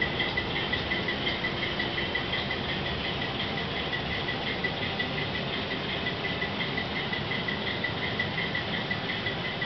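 A DCC sound decoder in an HO scale diesel locomotive playing its idling sound through the model's small speaker: a steady buzz that pulses evenly a few times a second.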